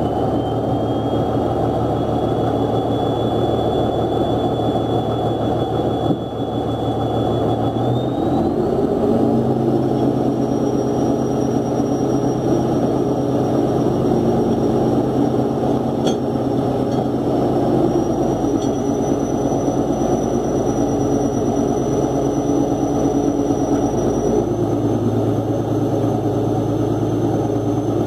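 Fishing boat's engine running steadily, with a high whine over the drone that rises in pitch about a third of the way in and steps up twice more as the engine speed changes.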